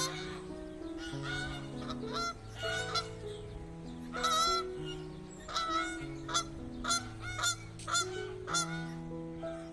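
Repeated short honking bird calls, roughly one or two a second, over background music of held low notes that change in steps.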